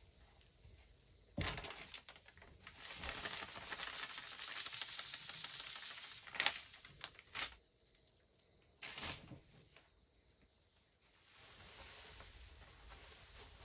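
Dry powder poured from a plastic bag onto wet paste in a plastic tray: a steady hiss for about five seconds, with crinkles and knocks of the bag. A knock follows, then a second, quieter pour of powder from a small container near the end.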